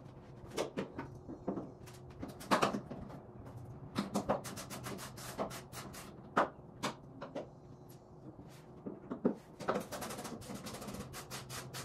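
Irregular clicks, clanks and knocks of hand tools and parts being handled while rock lights are unmounted from a truck, over a low steady hum.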